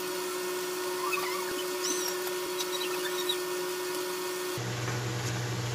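Steady mechanical hum and hiss, with faint light clicks of a silicone spatula mixing minced chicken filling in a pan; the hum shifts to a lower tone about four and a half seconds in.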